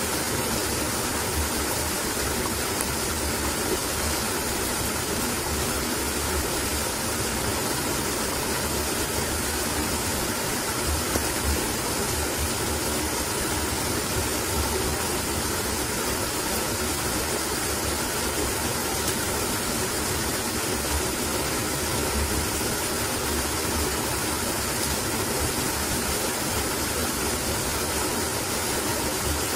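Steady, even rushing noise with no separate events, constant in level throughout.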